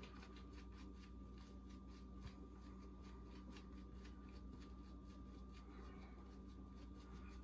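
Muhle R41 open-comb safety razor scraping through lathered stubble against the grain, a faint quick run of short strokes, about three or four a second.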